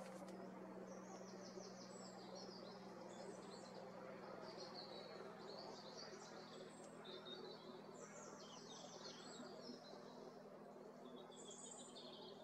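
Faint, high chirping and twittering of small songbirds in short phrases, over a steady low hum.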